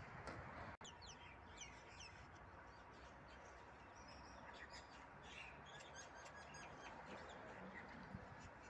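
Faint outdoor ambience with small birds chirping: many short, high calls, with a run of quick falling notes about a second in, over a steady background hiss.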